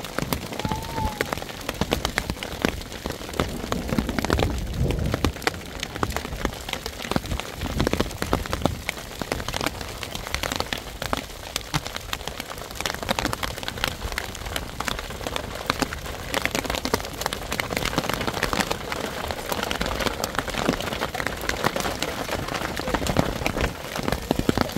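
Heavy rain falling steadily, a dense continuous clatter of drops striking a surface.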